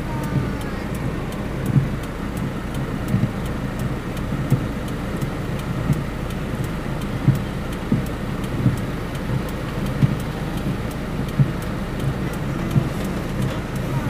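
Car windshield wipers sweeping a rain-wet windscreen, heard from inside the cabin: a soft thump about every second and a half, over the car's steady low rumble.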